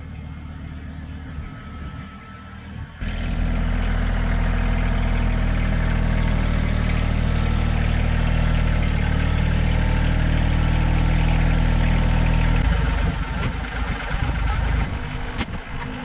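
Diesel engine of a Kioti NS6010 compact tractor running. It suddenly gets much louder about three seconds in and holds a steady drone, then turns rougher and somewhat quieter near the end, with a few clicks.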